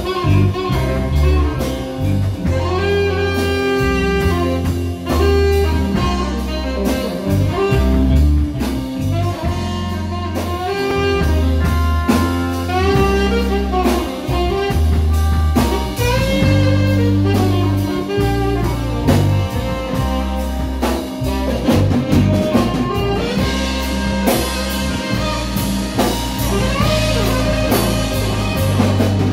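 Live band playing an instrumental break: a saxophone solo over electric guitar, bass guitar and drum kit.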